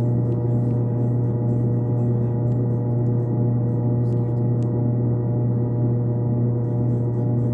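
Steady, unbroken low drone of several held tones, without any beat.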